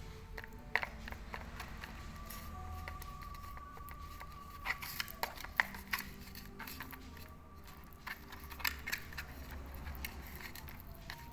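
Scattered small clicks and taps from hands handling slime, coming irregularly, in a few clusters.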